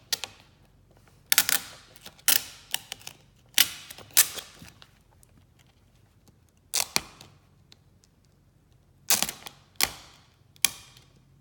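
Vinyl tint film crackling and snapping as it is handled and pulled taut over the lamp: scattered sharp clicks in short clusters with quiet gaps between.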